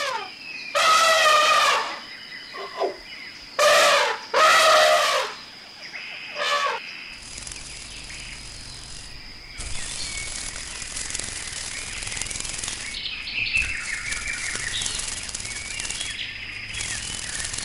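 Elephant calling: several loud, wavering trumpet-like calls of about a second each, then from about seven seconds in a steady noisy outdoor background with a low hum.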